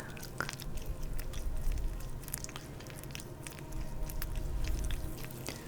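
Oily hands rubbing and squishing close to the microphone, making a continuous run of small wet, sticky clicks over a low rubbing rumble.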